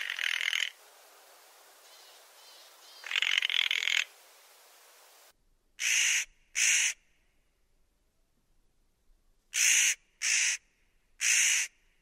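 Large-spotted nutcracker (Nucifraga multipunctata) giving harsh, rasping calls. There are two longer calls over a hissy background, which then drops away, followed by five shorter calls: a pair, then three near the end.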